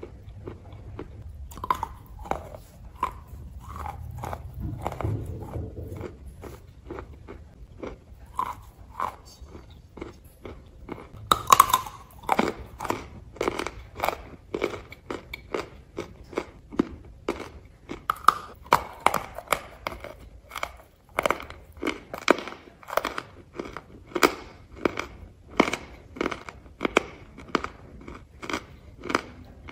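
Close-up crunching and chewing of a hard chunk of eating clay. There is a loud bite about eleven seconds in, then steady crunches about two a second.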